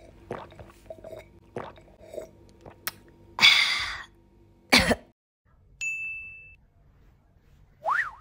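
Several quick gulps of a drink from a glass, then a loud breathy exhale and a short throaty sound a second later. Near the end come a bright ding and a quick rising-and-falling swoosh.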